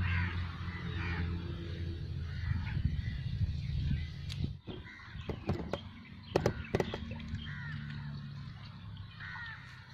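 Birds calling outdoors in short, repeated chirps, with a few sharp clicks about four to seven seconds in.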